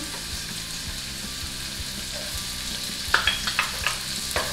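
Diced carrots and celery sizzling in a hot skillet with a steady hiss. About three seconds in come a few sharp clicks and taps as diced onion is tipped into the pan from a small bowl.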